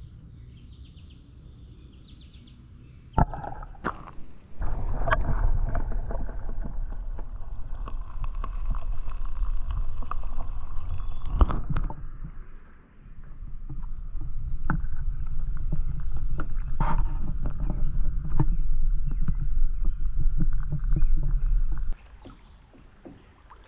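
Kayak on the move: a heavy low rumble from the hull with sharp knocks here and there. It starts about four seconds in, dips briefly near the middle and stops shortly before the end.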